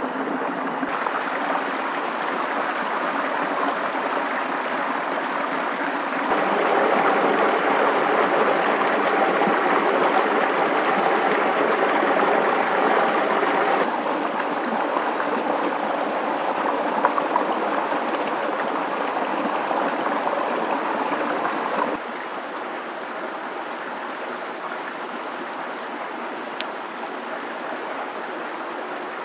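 Steady rushing outdoor ambience with no distinct events. Its level jumps up about six seconds in, drops about fourteen seconds in, and drops again about twenty-two seconds in.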